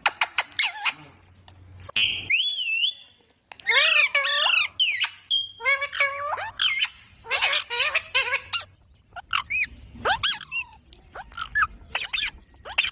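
Baby parrots squawking and chirping in a quick run of short calls that sweep up and down in pitch, with a brief pause about three seconds in.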